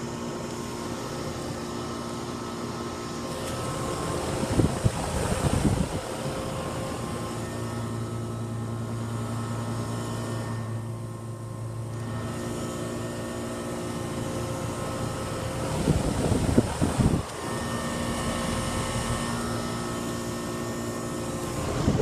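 Goodman heat pump outdoor unit running with a steady electrical hum. Wind buffets the microphone a few times, loudest about four and a half seconds in and again near sixteen seconds.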